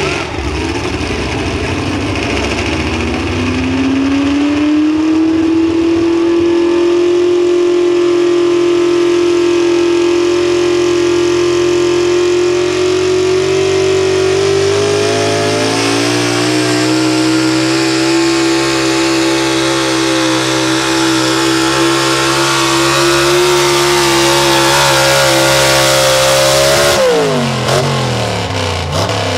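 Pro stock two-wheel-drive pulling truck, a vintage Ford F-series pickup with upright exhaust stacks, running at full throttle while it pulls the sled. The engine note climbs over the first few seconds and holds high and steady. It steps up in pitch about halfway through, then drops away sharply near the end as the truck comes off the throttle at the end of its pull.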